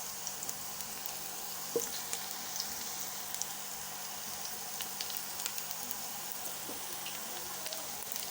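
Onions frying in hot cooking oil in a pot, a steady sizzle with scattered small crackles and pops.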